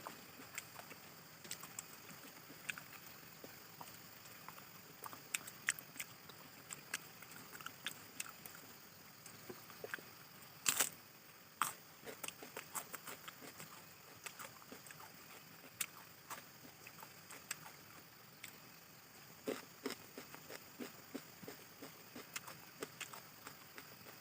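Close-up chewing and mouth sounds of a person eating pork and fermented bamboo shoots: irregular wet smacks and small clicks, with two sharper clicks about eleven seconds in.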